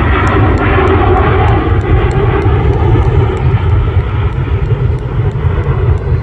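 Fixed-wing aircraft flying past, a loud steady engine noise that eases off slightly in the second half.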